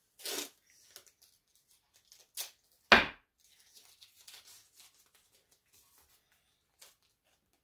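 Green painter's tape being pulled off its roll and torn in a few short rips, with one sharp knock about three seconds in and light rustling as strips are handled and pressed onto the stencil.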